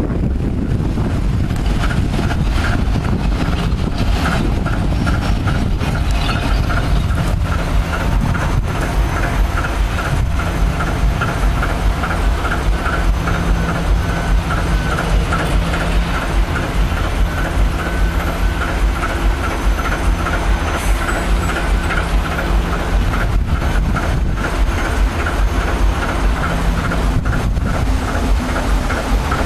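Large diesel locomotive standing with its engine idling, a steady low running note with an even, repeating pulse.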